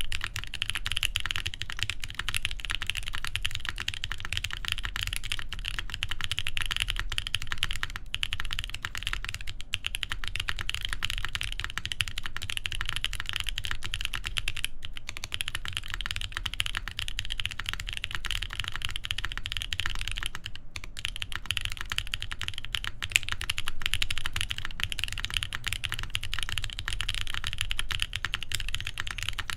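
Continuous fast typing on a TGR Jane v2 CE mechanical keyboard with lubed Boba U4T tactile switches in a full carbon fiber plate, under GMK keycaps. The keystrokes run as a dense, even stream with a few brief pauses.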